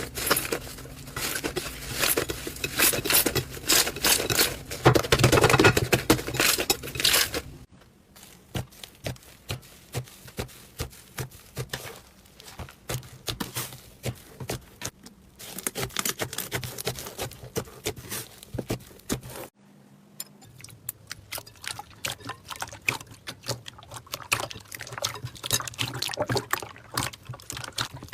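Slime being handled for ASMR, making dense runs of wet clicks and crackles. The sound changes abruptly about eight seconds in and again near twenty seconds, as one clip gives way to the next.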